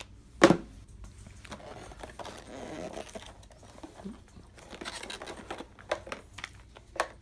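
Board game components being handled: a sharp knock about half a second in, then quiet rustling and scraping with a few light clicks, two of them sharper near the end.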